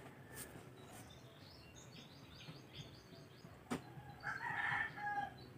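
Faint bird calls: a run of short, high chirps, then a longer, louder call about four seconds in.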